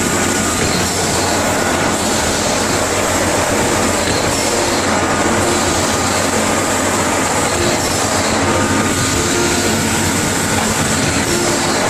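Toy jelly filling and sealing machine running: a steady mechanical clatter that does not let up.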